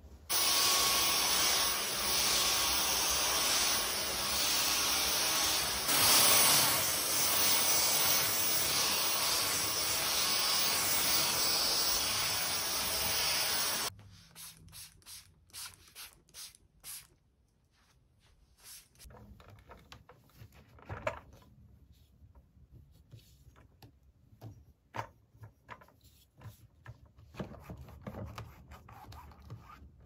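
A loud, steady rushing noise that cuts off suddenly about 14 seconds in, followed by a quick run of short squirts from a trigger spray bottle of sanitizing spray onto a fabric mattress. After that come faint, scattered rustles and taps.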